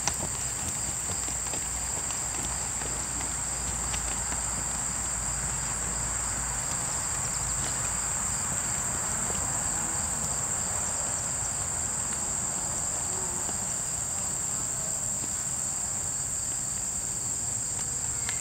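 Steady high-pitched insect chorus, crickets trilling without a break.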